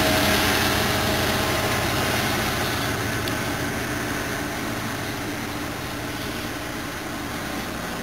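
NJ Transit GP40PH-2B diesel locomotive and its train pulling away, the engine's steady drone fading as it recedes.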